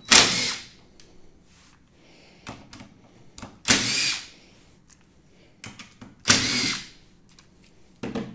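A DeWalt 20V cordless drill/driver with a Torx bit runs in three short bursts of about half a second each, backing out the screws that hold the motor. Small clicks come between the bursts.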